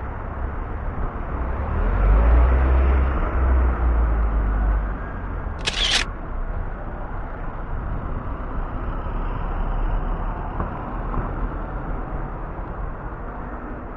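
Outdoor street background noise with a low rumble, strongest two to five seconds in. About six seconds in, a single brief camera-shutter click sounds as a still photo appears.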